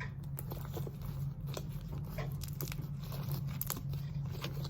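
Sticky slime being worked and squished, giving irregular small clicks and pops, over a steady low hum.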